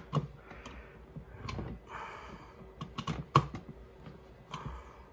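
Scattered light clicks and scrapes of a toaster's power plug and cord being fumbled at a wall socket, with the sharpest click about three and a half seconds in.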